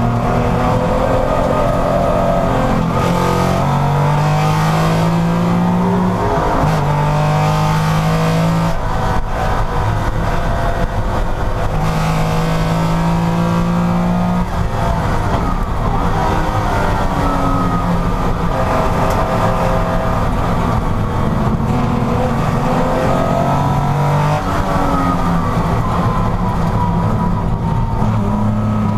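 Porsche race car engine running hard on track. It revs up through the gears again and again, with the pitch stepping down at each shift and sweeping down and up through braking and acceleration.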